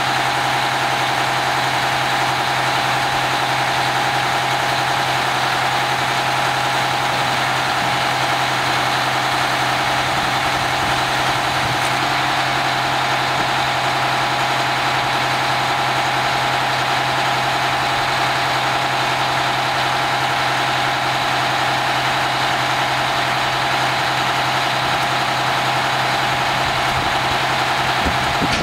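Oshkosh M1074 PLS truck's diesel engine running steadily, driving the hydraulic load-handling arm as it lifts a flatrack onto the truck.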